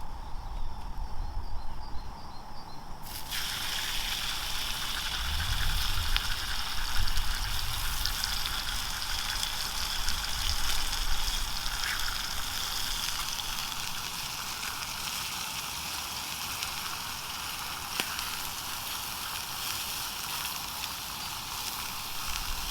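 Sausages and bacon frying in a small Stanley frying pan: a steady sizzle that starts suddenly about three seconds in and carries on evenly, with a few faint pops.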